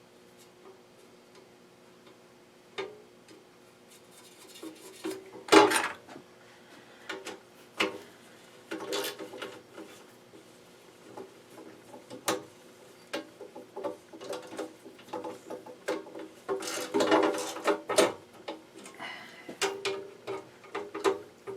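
Wrenches and metal fittings clinking and clanking in an irregular run of sharp clicks, with louder clatters about five and a half seconds in and again around seventeen seconds.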